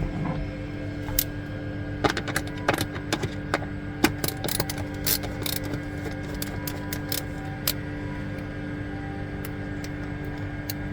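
A quick run of sharp clicks, knocks and rattles from tools and small hardware being handled. It comes over a steady hum and dies away after several seconds.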